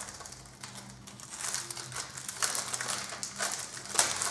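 Clear plastic packaging bag crinkling as it is handled, in irregular crackles that grow busier from about a second and a half in.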